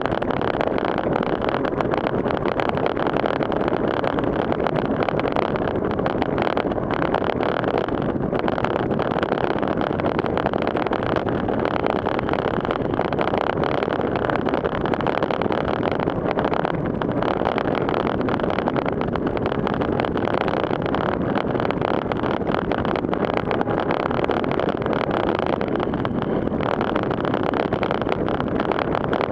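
Steady rushing hiss of a road bike's tyres cutting through standing floodwater at around 30–36 km/h, mixed with spray and wind noise on a handlebar-mounted camera.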